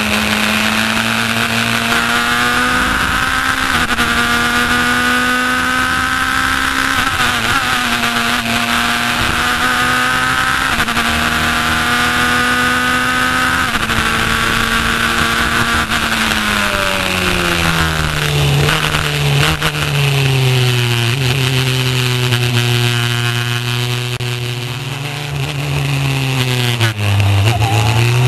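Racing car engine heard from the open cockpit, running hard at high revs with small steps at each gear change for about the first fifteen seconds. The revs then fall away as the car slows and stay low, with a brief dip and pick-up near the end.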